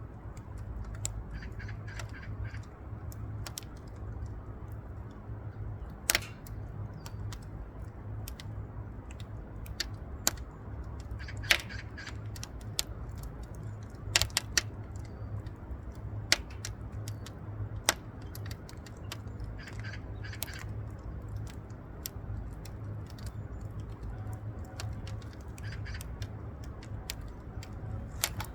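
Wood fire burning in a wood stove, crackling with sharp irregular pops and snaps over a steady low rumble.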